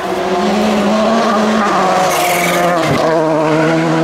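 Rally car engine at high revs under hard acceleration, holding a steady note with a short break in it about three seconds in, like a gear change. A brief hiss, typical of tyres scrubbing, comes about two seconds in.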